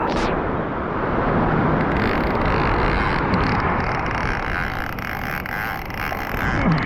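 Steady low rumble of wind buffeting the microphone over breaking surf.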